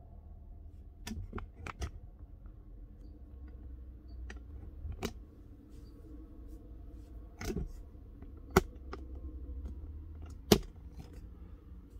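A scattered series of short, sharp clicks and taps, small handling noises, two of them louder near the end, over a low steady hum.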